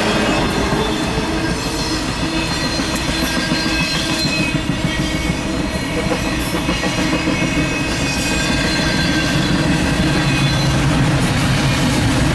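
Intermodal freight train's container and trailer cars rolling past close by: a loud, steady rumble of steel wheels on the rails.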